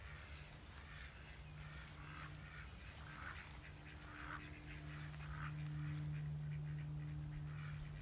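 Geese honking in a string of short calls, over a low steady hum in the background that grows louder about halfway through.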